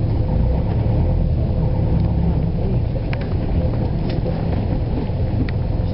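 Bus engine and road rumble heard from inside the passenger cabin while driving: a steady low drone with a faint hum, and a few light clicks or rattles.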